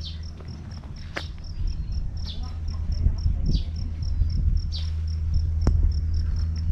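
Outdoor insect chirping in an even, rapid train of short high pulses, with a few short falling chirps over it. Underneath is a low steady hum, with a rumble that swells in the middle.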